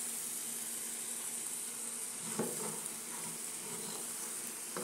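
Ground beef and onion sizzling steadily in a hot frying pan while a spoon stirs through it, with one light knock about halfway.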